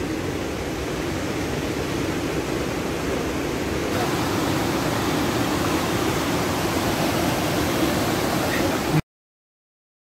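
Steady rush of a waterfall cascading over rocks into a stream. It gets a little louder about four seconds in and cuts off abruptly near the end.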